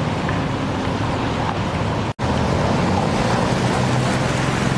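Loud steady rush of floodwater with the low hum of vehicle engines, as traffic moves through a flooded street. The sound drops out suddenly for an instant about two seconds in.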